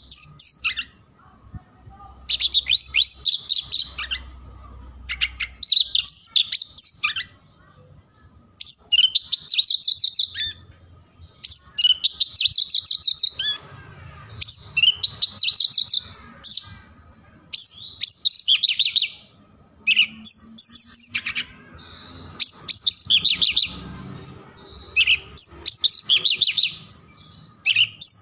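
Male Javan bush lark (branjangan) singing: a string of short, fast trilling phrases, each a second or two long, with brief pauses between.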